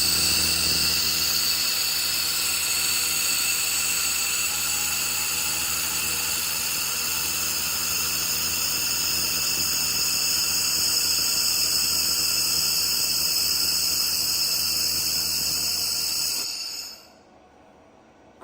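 2500 W handheld laser welder running continuously at 60% power with wire feed while it welds 6 mm steel plate. It makes a steady, high-pitched whine over a low hum and cuts off about 17 seconds in.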